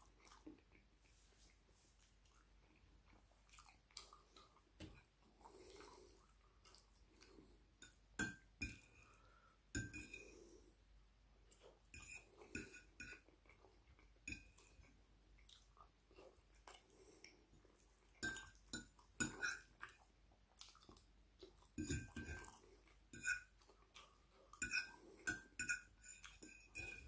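Metal fork clinking and scraping against a ceramic plate while a meal is eaten: short ringing clicks in clusters, more frequent in the second half, with faint chewing between them.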